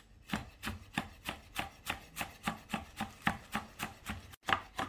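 Knife chopping a rolled bunch of fresh mint leaves on a cutting board, in even strokes about three a second.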